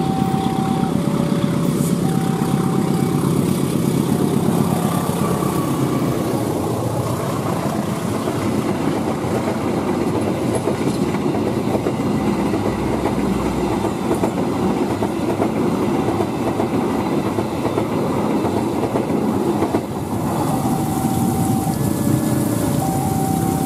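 Passenger train running past close by, the diesel-electric locomotive's engine dropping in pitch as it goes by, then the coaches rolling past with wheels clattering over the rails. A two-note electronic warning signal alternates steadily at the start and again in the last few seconds.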